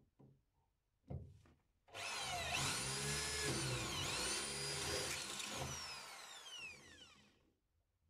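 Electric drill boring a rivet hole through a new metal stem bar into a Kazanka boat's aluminium-alloy hull from underneath. The motor whine dips in pitch twice as the bit bites, then winds down over about two seconds near the end. A couple of short knocks come before the drill starts.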